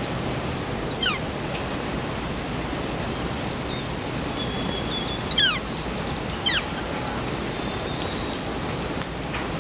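Wild birds calling outdoors over a steady hiss: three high whistles that fall steeply in pitch, about a second in, near the middle and a second later, with a few short chirps between.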